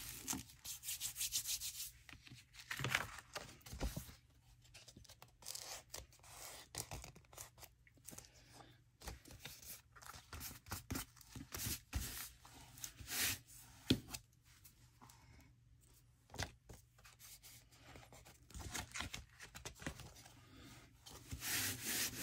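Sheets of paper being rubbed and handled by hand: a run of irregular scratchy rustles and short strokes.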